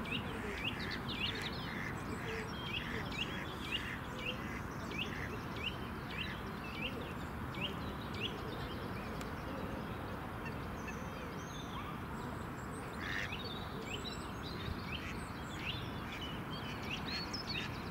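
Birds calling: short, high chirps, often two or three a second, over a steady outdoor background hiss.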